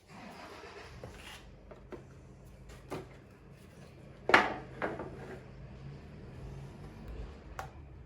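Scattered knocks and clatter of hard objects being handled, with soft rustling at first and a single loud knock about four seconds in, over a faint steady hum.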